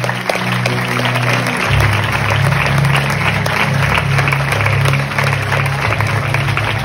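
Congregation applauding over slow music with sustained low chords that shift about two seconds in.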